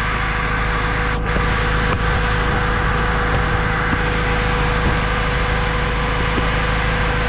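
Toyota 2AR 2.5-litre four-cylinder engine idling with the AC compressor engaged while the system is charged with R134a. It makes a steady hum over an even rush of air.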